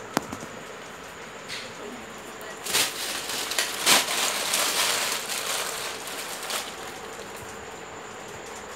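A sharp click, then a few seconds of crinkly rustling with a couple of sharper cracks, as a thin plastic bag and plastic toys are handled.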